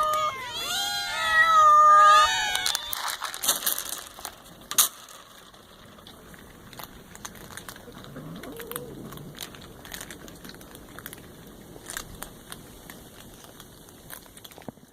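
Several hungry cats meowing at once, many overlapping calls, for about the first three seconds; then the meowing stops and only quieter scattered soft clicks remain, with one faint low call about eight seconds in.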